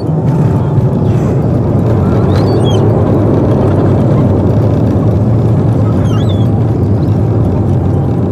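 Steady, loud rumble of a running vehicle engine mixed with wind-like noise, with a few short, high chirps about a third of the way in and again near three-quarters.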